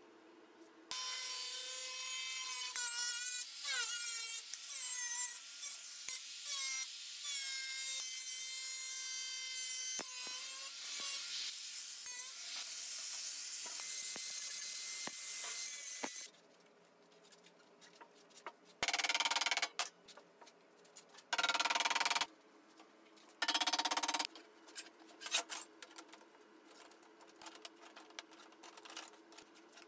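Thin sheet metal being scored and worked with hand tools: a long metal-on-metal scraping with wavering squeals, then, after about 16 seconds, three short loud bursts and scattered light metallic clicks.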